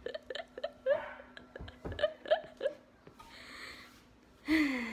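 A girl giggling in short bursts, then a breath out and a louder falling 'ahh' near the end.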